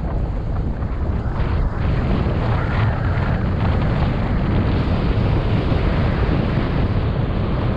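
Steady wind rushing over the microphone, airflow noise of a paraglider in flight.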